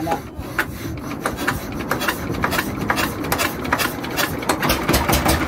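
A boat's inboard diesel engine being hand-cranked: a rapid clatter of strokes that speeds up, then the engine catches about four and a half seconds in and starts running.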